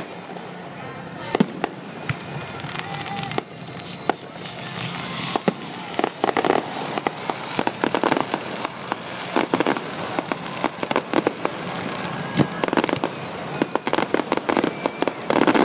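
Fireworks finale barrage: aerial shells bursting in rapid succession with crackle, the bangs coming thicker toward the end. From about four to ten seconds in, several whistling fireworks sound together, each falling in pitch.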